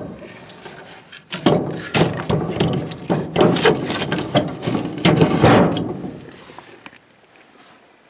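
A wood fire being tended: irregular knocks, scrapes and clatters of wood and metal, stopping about six seconds in.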